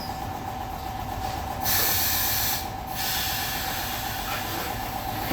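Compressed air hissing in a loud burst of about a second, over a steady mechanical hum in a tire shop.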